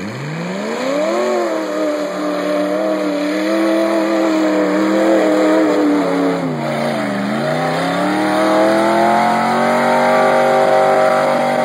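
Chevy S10 pickup's 327 small-block V8 revving hard at full throttle as the truck plows through a mud pit. The engine note climbs in the first second, holds high, dips briefly about seven seconds in, then climbs again.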